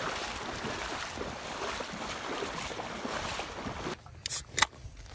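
Water splashing and sloshing around the legs of hunters wading through shallow marsh water. About four seconds in it cuts to a soda can being opened, with two sharp cracks from the pull tab.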